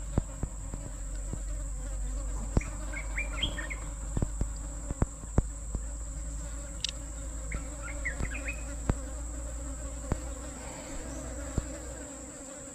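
Steady high-pitched drone of insects, with scattered small clicks and taps and a few brief chirps.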